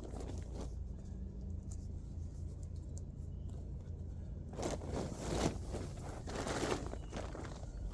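Polyester tent fabric being handled, rustling and scraping in two bursts of about a second each, the first a little over halfway through and the second near the end, over a steady low rumble.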